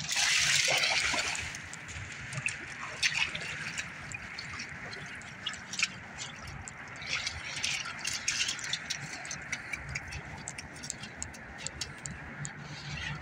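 A dog wading and splashing through a shallow creek, over a steady rush of flowing water. A loud splashy burst comes in the first second or so, then scattered small splashes and paw steps in water and mud.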